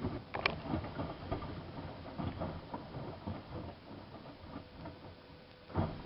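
Miele front-loading washing machine in its wash cycle: laundry tumbling in the turning drum, giving irregular soft knocks and clicks, with a louder thump near the end.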